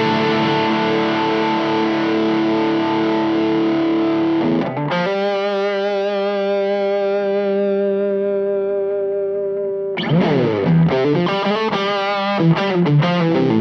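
Electric guitar played through a Way Huge Green Rhino overdrive pedal, giving a distorted tone. Two held chords ring out one after the other, then a quicker run of notes starts about ten seconds in.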